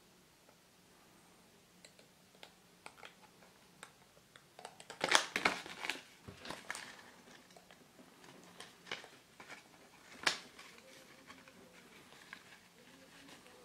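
Small plastic Minion toy parts handled and pressed together, making scattered clicks and crinkles. A quick flurry of louder clicks and rattles comes about five seconds in, and one sharp click about ten seconds in.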